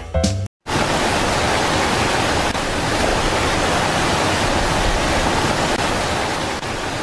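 The last half second of guitar music, a brief cut to silence, then a steady rushing of flowing water.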